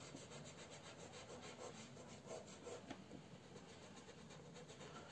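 Faint rubbing of fingertips blending oil pastel on paper.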